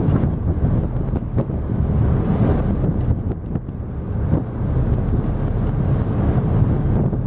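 Wind buffeting the microphone on the deck of a moving ferry, a steady low rumble with gusts, over the rush of the churning wake.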